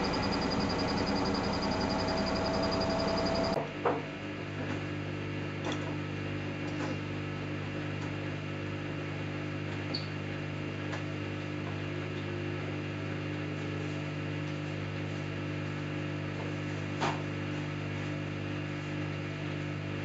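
Samsung EcoBubble front-loading washing machine running a wash cycle. For the first few seconds there is a louder rushing sound with a faint rising whine. After a sudden change it settles into a steady low hum with a few faint clicks as the drum turns.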